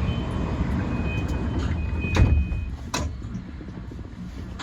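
An E235 series electric train heard from its driver's cab, with a steady low rumble throughout. A high electronic beeping tone sounds on and off through the first few seconds. Two sharp knocks fall about two and three seconds in, the first one the loudest.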